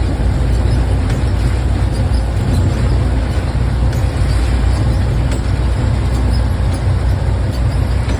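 Heavy rain: a loud, steady hiss with a deep rumble underneath and no letup.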